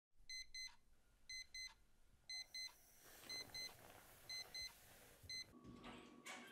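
Digital alarm clock beeping: two short, high-pitched beeps about once a second, six times over, stopping about five and a half seconds in. A low steady hum and a single click follow near the end.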